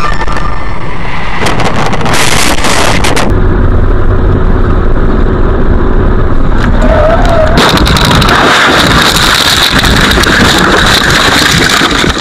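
Dash-cam audio from inside a car at speed: steady road and engine rumble. From about eight seconds in comes a loud, harsh, continuous noise as the car crashes and tumbles, with the camera knocked about.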